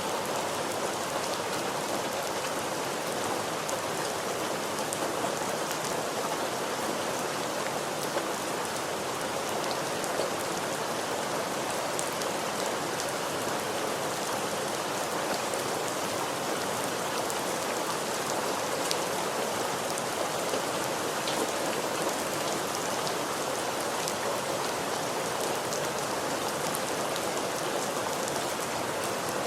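Steady rain falling on a surface, a continuous even hiss dotted with the ticks of individual drops.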